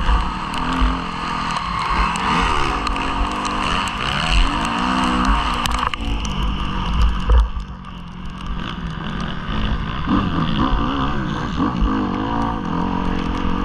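Motocross bike engine revving up and down repeatedly as it is ridden hard, heard on board with heavy wind rumble on the microphone; the throttle eases off briefly a little past halfway.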